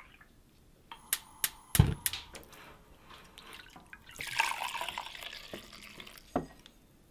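Kitchen work sounds. A few sharp clicks and a knock come about a second or two in, then milk is poured for about a second and a half, and a single thump follows near the end.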